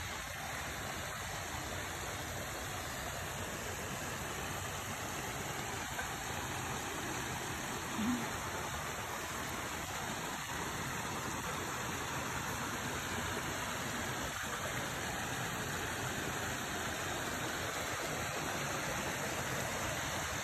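Creek water rushing steadily over rocks, growing slightly louder toward the end.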